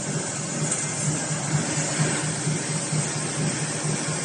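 Chain link fence weaving machine running with a steady mechanical noise and a regular low pulse, a few times a second.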